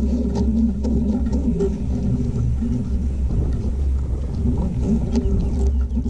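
Strong wind gusting across the climber's helmet-camera microphone as a continuous low rumble, with a steady engine-like hum underneath.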